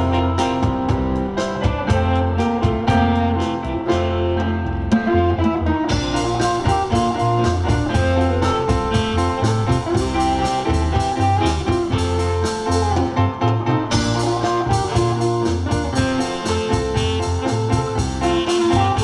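Live instrumental combo band playing: drum kit keeping a steady beat under a bass line, with guitar and keyboard carrying the tune.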